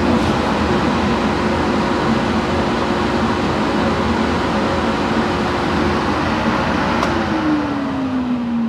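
Blower of a DPF flow-test table running steadily with a loud rushing hum, pulling air through a diesel particulate filter for a restriction test. About seven seconds in, its hum begins to sink in pitch as the fan winds down.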